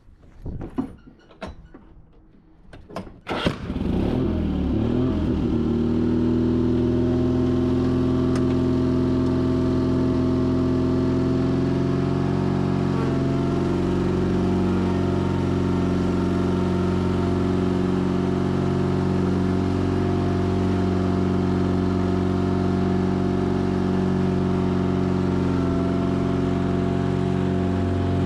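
A few clicks and knocks, then the Sears Craftsman FF24 garden tractor's engine starts about three and a half seconds in and settles into a steady run.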